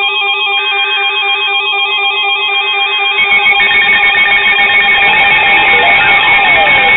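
Weather alert radio sounding its electronic alert: several tones warbling in quick steps, which grow fuller about three seconds in, with siren-like sweeps down and back up near the end. It signals an incoming warning.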